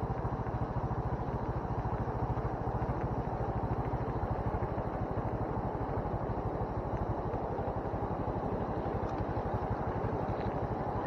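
Motorcycle engine running steadily while the bike is ridden, its firing making a fast, even pulse, heard close up from a camera mounted on the bike.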